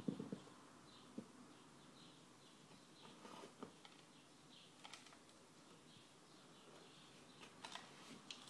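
Near silence, with faint high chirps repeating about every half second and a few soft clicks and taps, loudest right at the start.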